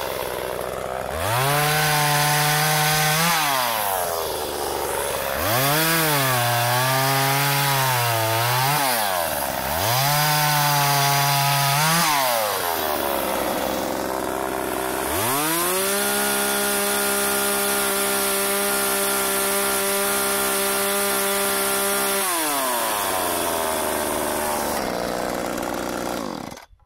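McCulloch Eager Beaver Super 2318AV 38 cc two-stroke chainsaw cutting a log, revved up and let back toward idle three or four times. It is then held at high revs for about seven seconds, drops back to idle, and is shut off near the end.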